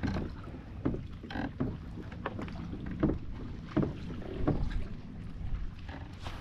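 Sounds of a kayak on the water: a series of irregular light knocks and splashes against the hull, over a steady low rumble of wind on the microphone.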